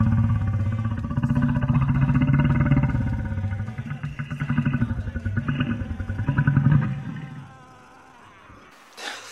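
A man's long, drawn-out burp, lasting about seven seconds, swelling and dipping before it trails off.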